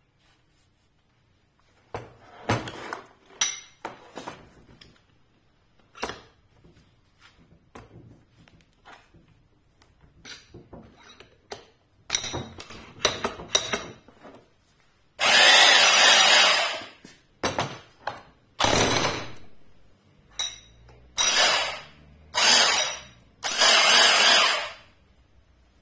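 Trotec PRDS 20-230V electric demolition hammer with a chisel fitted, run in the air in short trigger bursts: one loud run of nearly two seconds, then four shorter bursts, each fading as it stops. Before that come scattered clicks and knocks as the tool is handled in its plastic case.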